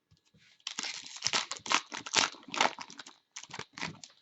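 Trading card pack wrapper being torn open and crinkled by hand: a few light clicks, then a dense run of crackling from about a second in.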